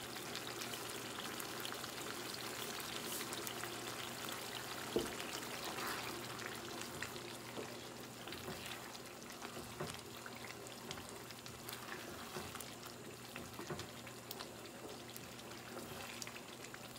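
Thick tomato sauce sizzling and bubbling in a pot on the stove while a wooden spoon stirs through it, with scattered light knocks of the spoon against the pot, the sharpest about five seconds in.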